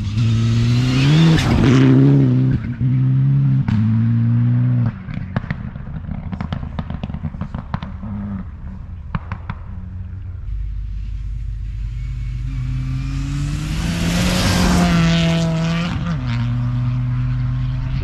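2003 Mitsubishi Lancer Evolution rally car at full throttle on a snow stage, its engine note cutting out briefly three times in the first five seconds as it lifts and shifts. Then a run of sharp pops and cracks as it comes off the throttle. Later a rally car's engine swells as it slides past and drops in pitch as it goes by.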